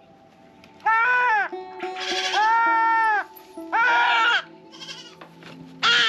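A kid goat bleats loudly four times, each cry rising and falling, the longest lasting over a second. It is crying out while a hot electric disbudding iron burns its horn buds.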